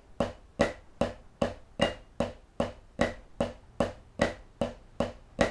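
Snare drum struck with sticks, playing the Swiss Army triplet rudiment slowly as even triplets at quarter note = 50, about two and a half strokes a second. The strokes stop just before the end.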